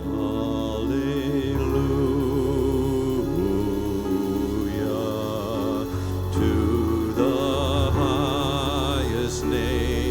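Slow worship music: long held notes with vibrato over a steady low accompaniment.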